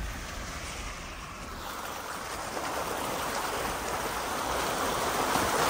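Muddy water rushing and splashing around the tyres of a Jeep Wrangler JL as it drives slowly through a flooded trail, a steady wash of water that grows louder.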